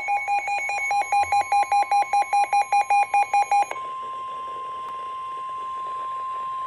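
Rapid electronic alert beeps, about four a second and alternating between two pitches, cut off about three and a half seconds in. A steady single-pitch weather-radio warning alarm tone follows, the signal that a warning such as this flash flood warning is about to be broadcast.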